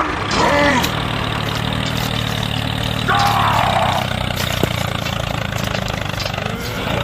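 Small engine of a DIY mini tractor idling steadily, an even low hum.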